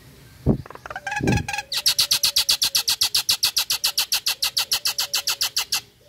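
A common myna gives two short harsh notes, then a rapid, even chattering call of about nine sharp notes a second for some four seconds before stopping abruptly.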